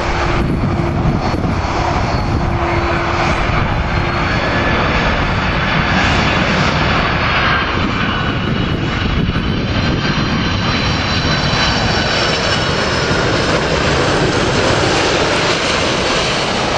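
Boeing 767 jet airliner on final approach, passing low overhead with its turbofan engines running at approach power: a loud, steady rush of jet noise with a high whine that builds after a few seconds and dips slightly in pitch as the aircraft goes by.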